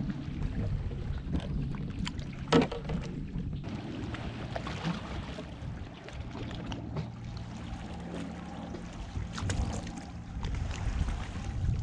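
Lake water lapping against a fishing kayak's hull, with small knocks of hands and gear on the boat and one sharp knock about two and a half seconds in.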